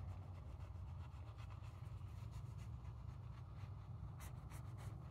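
Small folding utility-blade knife cutting through a bread roll: faint scratching of the blade through the crust, with a few sharper scrapes near the end, over a steady low background hum.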